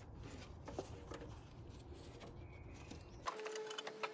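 A few faint clicks and small knocks from hands working at the car battery's fittings in the engine bay, over a low background rumble. About three seconds in, this gives way to a steady faint hum.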